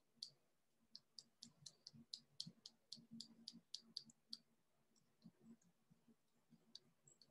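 Faint rapid clicking of a computer mouse, about four or five clicks a second for the first four seconds or so, then a few scattered clicks.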